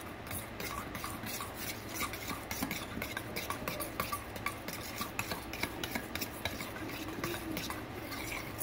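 A metal spoon stirring a thin, milky dressing in a stainless steel mixing bowl, with many small irregular clicks and scrapes as the spoon knocks against the bowl.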